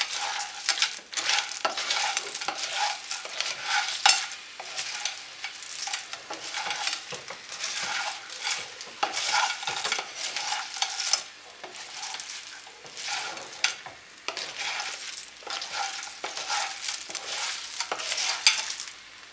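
Clams in their shells being stirred with a wooden spatula through breadcrumbs in a frying pan: shells clattering and scraping against each other and the pan in quick, irregular strokes, over the sizzle of the pan on the heat.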